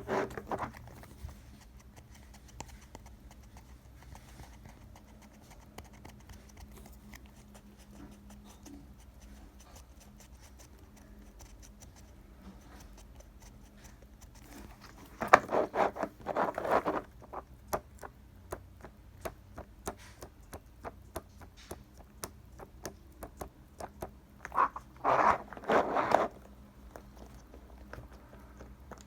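Cake-shaped silicone pop-it fidget toy being pressed and fiddled with: a run of small clicks and taps, broken twice by quick strings of louder pops.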